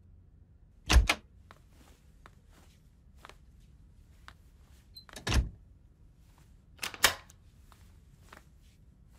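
A wooden room door thumping and a few faint footsteps on a hard floor. There are three solid knocks: about a second in, at about five seconds and at about seven seconds. The last one is a double, like a latch clicking as the door shuts.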